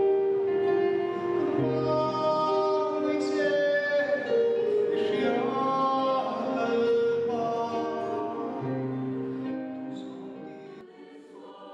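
A man singing a solo into a microphone in long, held notes, with low accompanying notes beneath. The sound fades out near the end.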